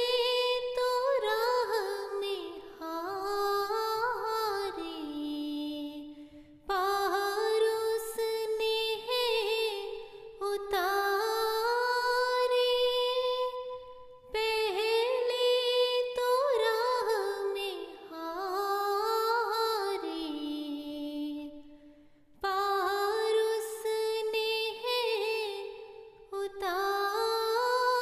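A woman singing an Urdu devotional nazm unaccompanied. Her voice moves through long, ornamented melodic phrases with brief pauses for breath between them.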